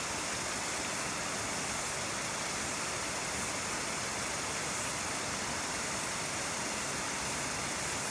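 Steady rush of river water flowing over a stony bed: an even, unbroken noise.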